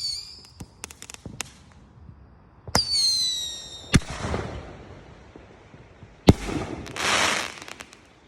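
Consumer fireworks going off: scattered small pops, then a sharp bang about three seconds in with a whistle that sinks slightly in pitch for about a second. Another sharp bang comes about six seconds in, followed by a short burst of hissing crackle.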